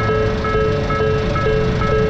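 Japanese level crossing warning bell ringing its repeated 'kan-kan' chime. The strokes come a little over twice a second and alternate between two pitches, with a low rumble underneath.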